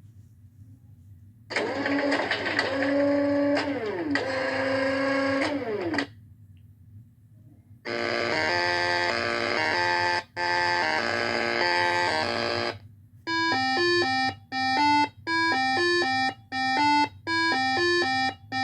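Electronic music and sound effects: gliding tones that slide up and down, then a dense held chord, then a run of short pitched beeps repeating about every half second or so.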